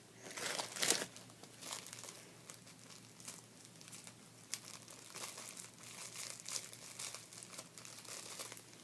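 Clear plastic wrapper crinkling and crackling as hands work it open, loudest about a second in, then a run of smaller irregular crinkles.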